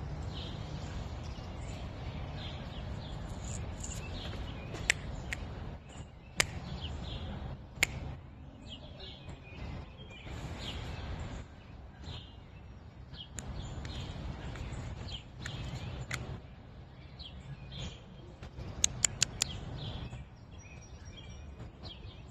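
Outdoor ambience: birds chirping here and there over a steady low background rumble, with a few sharp clicks, several of them in a quick cluster near the end.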